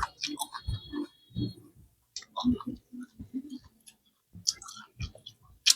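A person chewing fried chicken wings close to the microphone: irregular wet mouth clicks, smacks and soft crunches with short pauses between.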